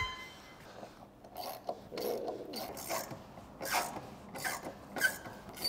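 Roll-up vehicle awning being shoved along and seated on metal roof-rack brackets: scattered scrapes, rubbing and knocks of metal and fabric-covered case, beginning with a short ringing metal clink.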